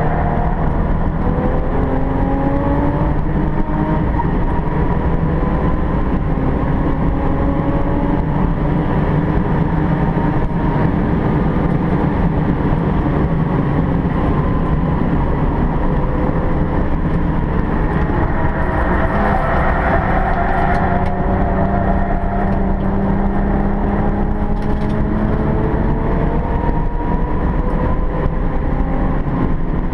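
Alfa Romeo 164 race car's engine at full effort on a circuit, heard from inside the cabin. Its pitch climbs and drops back several times as it revs up and comes off the throttle, over a steady low rumble.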